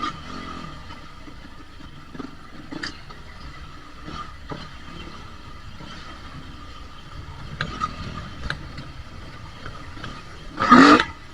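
Dirt bike engine running quietly at low revs, with scattered short knocks and a brief loud burst near the end.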